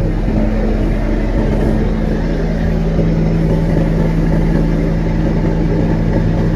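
A river cargo boat's engine running steadily while under way: an even, loud drone with a steady low hum.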